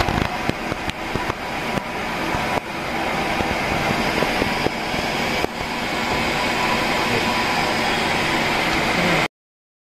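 Conventional lathe running with its chuck spinning: steady mechanical noise with a few uneven clicks in the first seconds, stopping suddenly about nine seconds in.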